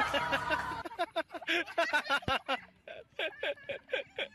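A person laughing in a quick run of short pulses, about five a second, after a brief moment of speech.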